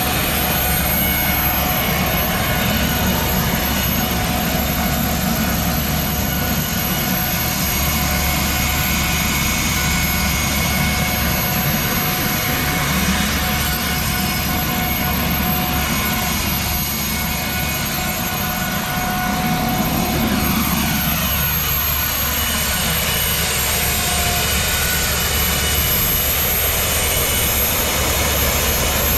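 Rover 1S60 gas turbine on a homemade garden tractor running steadily with a jet-like whine and rush. About twenty seconds in, a lower note swells and then falls away.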